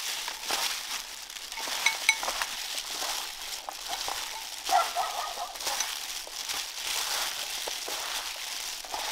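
Pig ear and banana flower salad being tossed and mixed in a bowl: a steady crisp rustling, with two sharp clinks about two seconds in.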